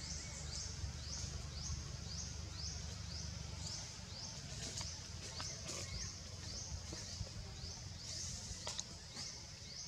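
An insect's high-pitched chirp repeating evenly, about two rising chirps a second, over a low rumble that drops away about four seconds in, with a few faint clicks.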